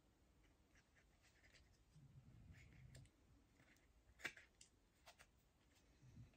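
Near silence with faint handling noises of small skincare packaging, a few soft ticks, and one sharp click about four seconds in.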